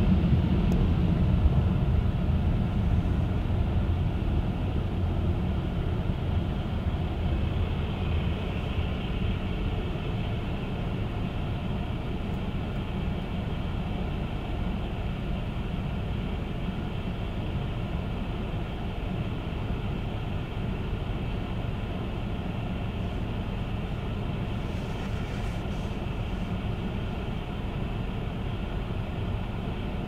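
Steady car road and engine noise heard from inside the cabin while driving, easing slightly over the first ten seconds and then holding level.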